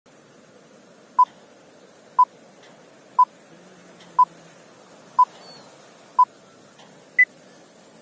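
Film-leader countdown beeps: six short identical beeps one second apart, then a seventh, higher-pitched beep.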